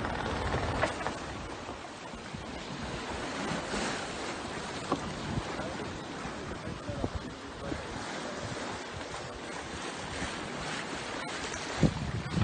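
Wind and water rushing along a 45-foot monohull sailboat under sail, with gusts of wind buffeting the microphone; one stronger gust near the end.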